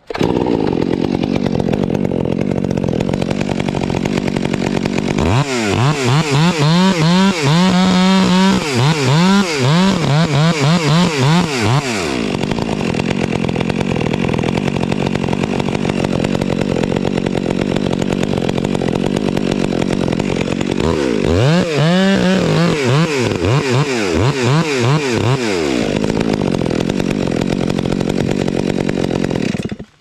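Chainsaw running under load while cutting through a large oak limb. Twice, from about five seconds in and again past twenty seconds, the engine pitch swings rapidly up and down.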